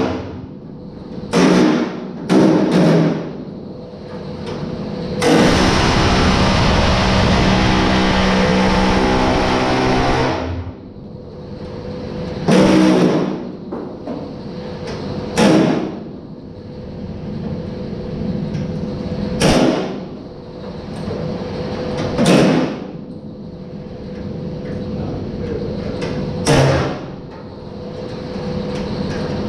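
Hand-held pneumatic tool worked against the car's quarter-panel sheet metal. It runs in short half-second bursts every few seconds, and in one long run of about five seconds starting about five seconds in, with a steady hum underneath.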